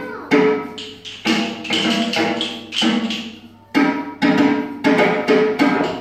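Rhythm music with a woody percussive beat, about two sharp strokes a second, each followed by ringing pitched notes; the beat lets up briefly around the middle and then comes back.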